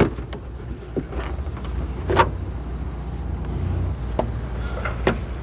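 Scattered clicks and knocks of hands working the plastic coolant overflow tank loose from the engine bay, the loudest a little over two seconds in, over a steady low hum.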